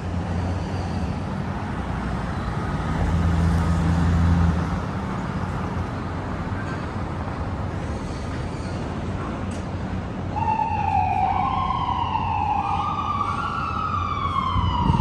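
Busy city street traffic noise with a low engine drone. About ten seconds in, an emergency vehicle's siren starts and wails up and down in pitch, loud and clear over the traffic.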